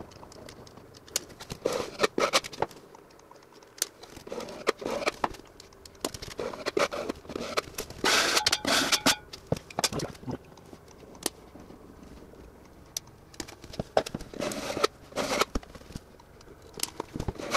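Metal putty knife scraping and spreading sealant across the seams of foam tile backer board, in short irregular strokes with scattered clicks and taps.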